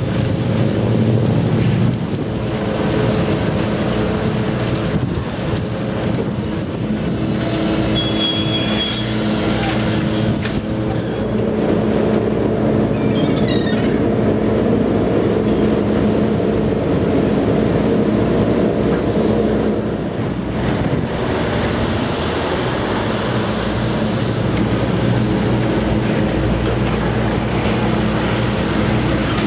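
Steady mechanical drone of diesel engines and deck machinery at a fishing quay, from the boat hoisting its catch and from lorries, with faint gull calls about halfway through. In the last part, wind blows on the microphone.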